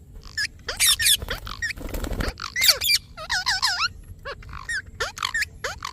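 Indian ringneck parrot calling in a quick series of sharp, high-pitched screeches and chirps that slide up and down in pitch. A short burst of rustling noise comes about two seconds in.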